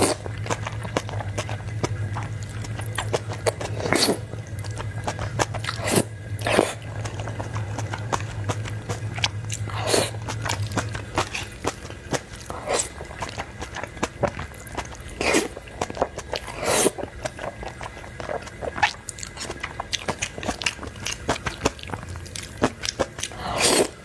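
Close-up eating sounds: noodles slurped into the mouth with loud slurps every few seconds, and wet chewing and smacking in between. A low hum runs underneath and stops about halfway through.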